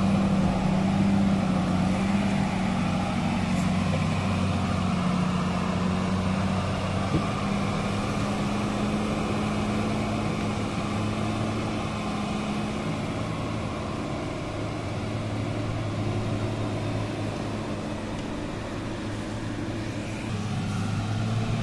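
Diesel engine of a timber-laden Tata 4x4 truck running steadily under load as it climbs uphill, fading slowly as the truck pulls away and growing a little louder again near the end.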